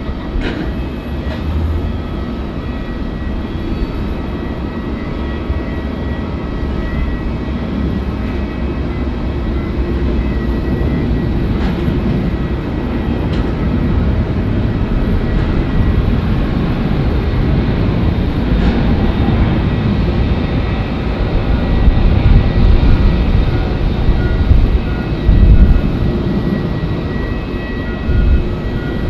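Airbus A350-900's Rolls-Royce Trent XWB jet engines running: a loud, steady rumble with a thin steady whine above it. The rumble swells louder through the second half, with a few heavier low surges.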